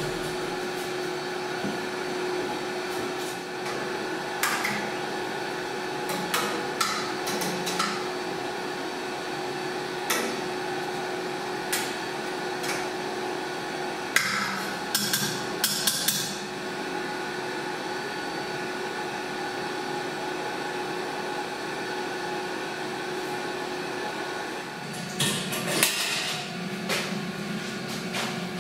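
Scattered metal clanks and knocks of a stainless steel stirring paddle and fittings against a stainless cheese vat, with a cluster of knocks in the middle and another near the end, over a steady equipment hum.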